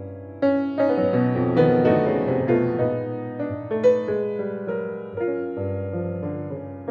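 A C. Bechstein grand piano playing a slow jazz tune: chords with a melody on top, notes struck one after another and left to ring.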